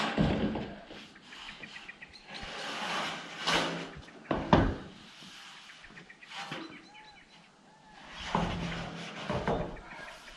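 Long corrugated steel roofing sheets scraping and clanking as they are shoved up and stood against the roof edge, in bursts of about a second, with a sharp clank about four and a half seconds in. Birds chirp between the bursts.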